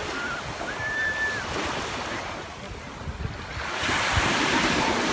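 Small sea waves breaking and washing up the sand, with wind buffeting the microphone; the surf eases off near the middle, then a wave breaks louder about four seconds in.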